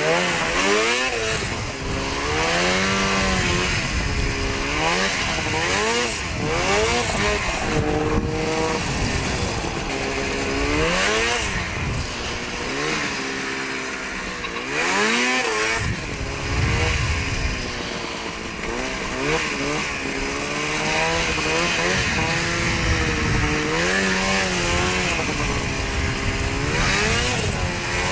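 Ski-Doo snowmobile engine revving up and down over and over as the throttle is worked on and off. A steady rush of wind and track noise runs underneath, and the engine briefly eases off about halfway through.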